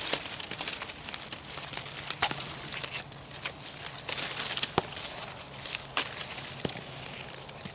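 Guava leaves and branches rustling as fruit is picked by hand, with a few scattered sharp snaps and clicks.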